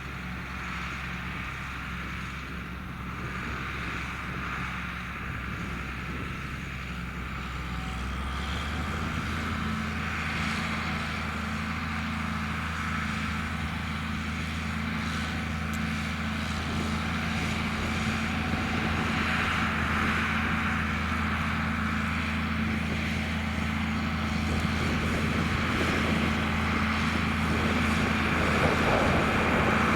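John Deere 4850 tractor's six-cylinder turbo diesel running under load while pulling a plough, a steady drone with faint hiss. The engine note steps up about a third of the way in, and the sound grows steadily louder.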